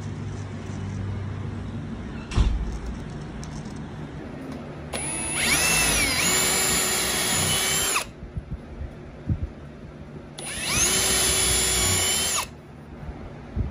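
Cordless drill boring pilot holes into a pine 2x4 with a small bit: two runs of about three and two seconds, the motor whine dipping in pitch as the bit bites and rising again. A single sharp knock comes about two seconds in.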